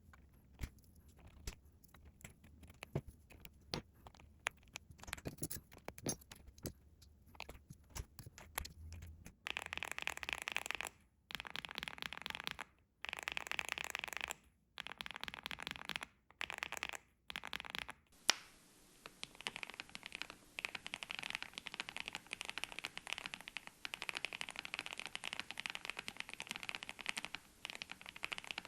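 Mechanical keyboard with Gateron x Skyloong Silver linear switches being typed on. Scattered single keystrokes for the first several seconds, then fast typing in short bursts broken by abrupt gaps, then steady fast typing over the last ten seconds.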